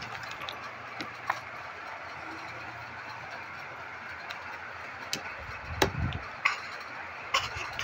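Handling noise from hands working an ointment tube on a pigeon chick close to the microphone: a few small clicks and a low thump about six seconds in, over a steady background hiss.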